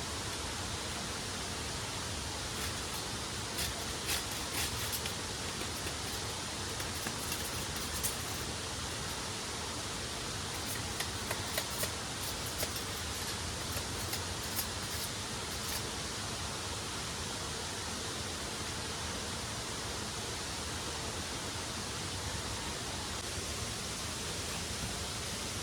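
Waterfall rushing, a steady, unbroken roar of falling water, with a few faint clicks scattered through the first half.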